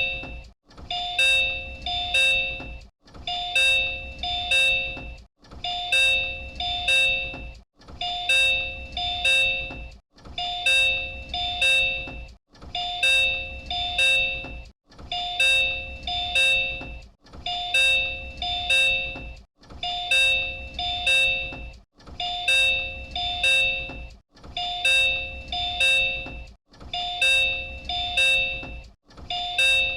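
Door chime of the Disney Resort Line Type 10 monorail, the same chime JR Central trains use, which sounds as the doors open or close. It plays over and over, repeating about every two and a half seconds, and each round is a few quick ringing tones.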